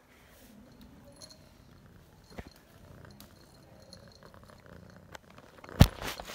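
Domestic cat purring close to the microphone, with a small click about two and a half seconds in and a loud knock near the end, as the phone is bumped against the cat.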